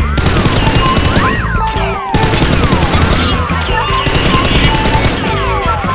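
Rapid machine-gun fire sound effects over background music, with a brief break about two seconds in.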